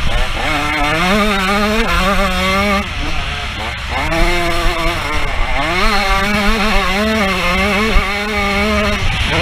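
125cc two-stroke motocross bike engine under hard throttle, revving up and down through the gears with its pitch climbing then dropping. It eases off about three seconds in before pulling hard again. Wind buffets the helmet-mounted microphone underneath.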